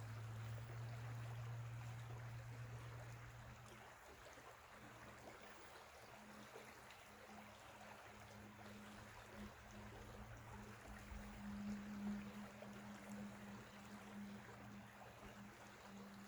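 Faint, steady rushing of a small creek's flowing water, with a low steady hum underneath that fades about four seconds in.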